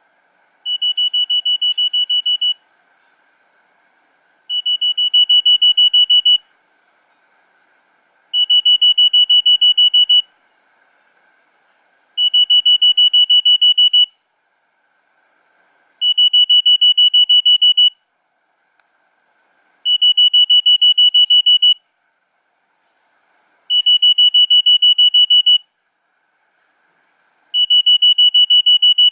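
Nokia 3100 mobile phone playing a ringtone of rapid high-pitched beeps. The beeps come in bursts of about two seconds, repeating about every four seconds.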